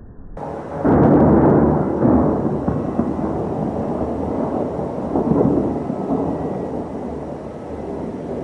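Thunder rolling after a lightning strike: a deep rumble that builds about half a second in, is loudest about a second in, swells again twice and slowly fades.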